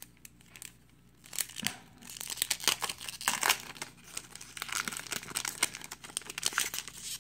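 A 1993 Topps baseball card pack's wrapper being torn open and crinkled by hand, with the cards sliding out. It starts about a second and a half in and runs on as a dense, irregular crackle.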